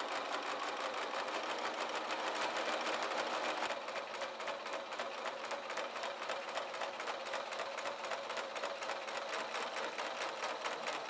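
Electric sewing machine running steadily, stitching a long straight seam: a fast, even needle rhythm, a little quieter from about four seconds in.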